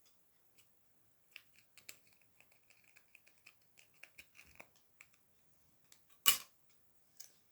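Small plastic LEGO pieces clicking and rattling as they are handled and sorted, a scatter of light clicks with one louder knock about six seconds in.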